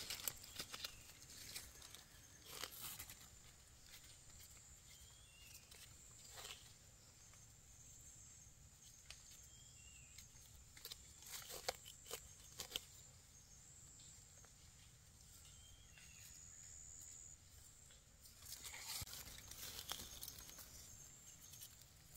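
Near silence, broken by a few faint, short scrapes and crackles of a small knife cutting into soil and dry leaf litter. There is a longer stretch of rustling near the end.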